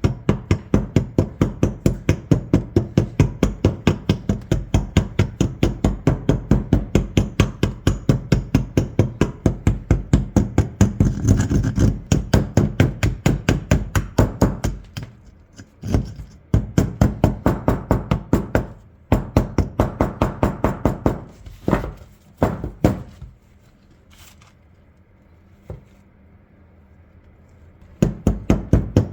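Rapid, even hammer taps, about four or five a second, chipping hardened rust off the corroded shotgun. They pause briefly twice, stop for a few seconds near the end, then start again.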